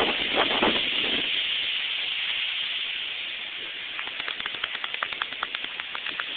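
Strong storm wind blowing, a steady dense rushing hiss, with a few knocks in the first second. Over the last two seconds or so a quick run of light ticks, several a second, sounds over the wind.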